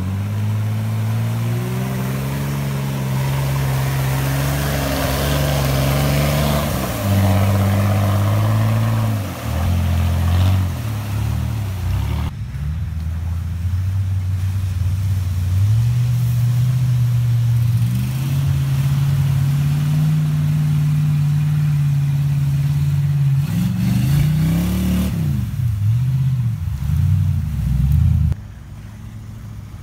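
Lifted pickup truck engines revving hard through mud holes, the pitch climbing and falling again and again as the throttle is worked. A rush of splashing mud and water runs over the first ten seconds or so, and the sound changes abruptly twice as a different truck takes over.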